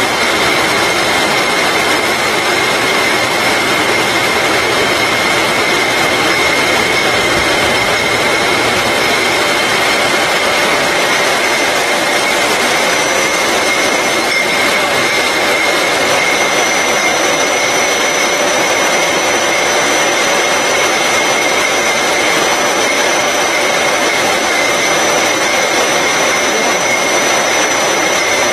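Rotary bottle labeling machine and its bottle conveyor running at production speed on a bottling line. It makes a steady, loud mechanical noise with a high whine, and a second, higher whine joins about halfway through.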